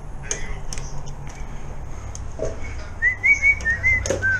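A quick run of short, clear whistled notes, about four or five a second, begins about three seconds in, over a low steady hum. A few light clicks and a knock come earlier.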